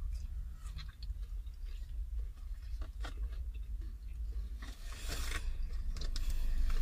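Close mouth sounds of chewing crispy fried chicken wings and fries: scattered soft crunches, bites and smacks. About five seconds in comes a short rustle of a hand in the takeaway food box, over a steady low rumble.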